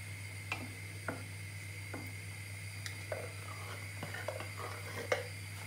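Metal spoon scraping and knocking inside a tin can as tomato paste is scooped out into a stew pot: a scattered series of short clicks and scrapes over a steady low hum.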